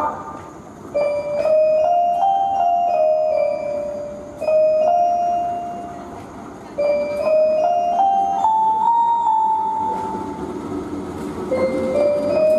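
Railway station public-address chime playing a melody of held, bell-like notes in three phrases, each stepping upward, the kind played before a platform announcement. A diesel locomotive runs faintly underneath.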